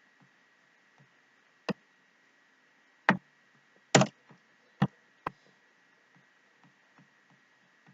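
A handful of sharp, unevenly spaced clicks from a computer keyboard and mouse, the loudest two about three and four seconds in, over a faint steady whine.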